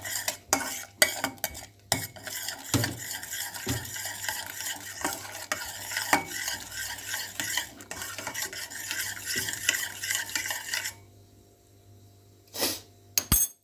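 A spoon stirring hot milk in a pan on the stove, clinking and scraping against the pan over a steady hiss. The hiss cuts off about eleven seconds in as the heat is turned off, and a couple of knocks follow near the end.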